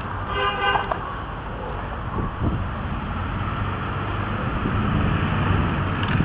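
Street traffic noise with a motor vehicle's engine rumbling, growing louder over the second half. A brief pitched tone comes about half a second in.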